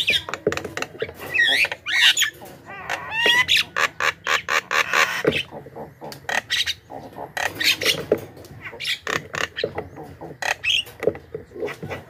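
Javan myna calling without a break: a rapid, jumbled run of harsh squawks, clicking notes and short whistles.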